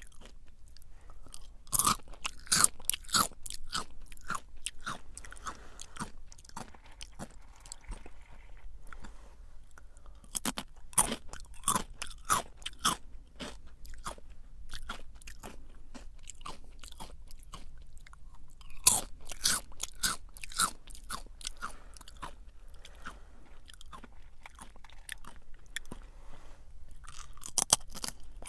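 Jagariko potato-stick snacks being bitten and chewed: bursts of sharp crunches roughly every eight seconds as a new piece is bitten, with softer chewing between.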